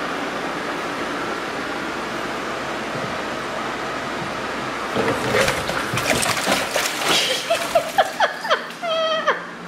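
A steady hiss for the first few seconds, then, about five seconds in, a cat falls into a glass fish tank: water splashes and sloshes in irregular bursts as it thrashes and scrambles out. A few short, falling cries come near the end.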